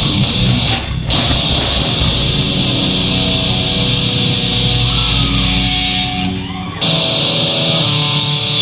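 Live rock band playing loud, heavy music with distorted electric guitar. The sound drops out for an instant about a second in, thins out just past six seconds, and then comes back in full.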